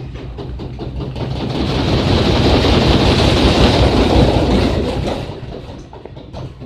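LG Turbo Drum WF-T9001S top-loading washing machine running, its drum turning and the water churning in one surge. The surge builds over about two seconds, holds, then fades shortly before the end, with light knocks before and after it.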